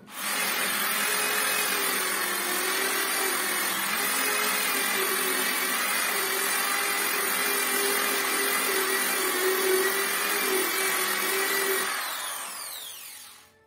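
Electric orbital sander switched on and running steadily as it sands a wooden door, with a steady hum and a higher whine. It is switched off about twelve seconds in, its whine falling as it spins down.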